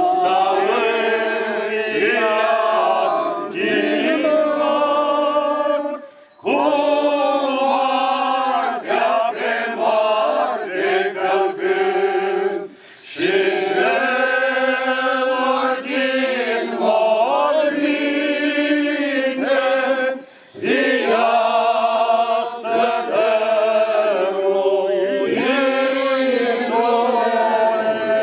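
A group of voices singing a chant in long phrases, with three short breaks between phrases.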